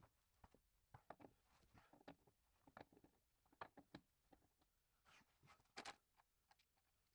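Faint irregular clicks, taps and light knocks, a few a second at times, with a louder cluster about five to six seconds in.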